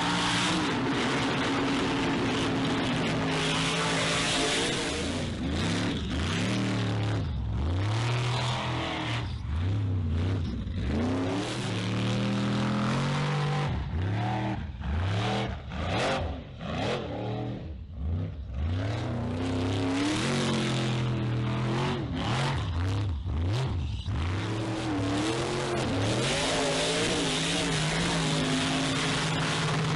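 Formula offroad buggy's race engine at high revs. Through the middle the throttle goes on and off again and again, the pitch rising and falling in quick swoops, and near the end it holds high again.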